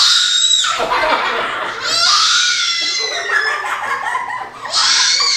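A family laughing together, with a toddler's high-pitched squeals of laughter rising above it three times.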